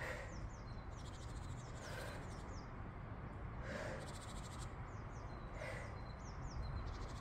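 A person breathing hard, one breathy exhale about every two seconds in time with tricep dips, while small birds chirp in the background with short, high, downward-sliding notes and quick trills.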